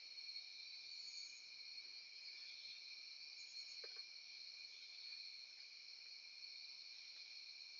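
Faint, steady chorus of crickets and other night insects, a continuous high-pitched trilling, with one faint click about four seconds in.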